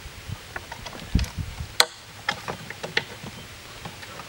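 Scattered handling clicks and knocks, with one sharper click just under two seconds in and a duller thump shortly before it. The sounds come from a fiber-optic splice closure being unhooked from its bungee cord and handled on the spool's mounting plate.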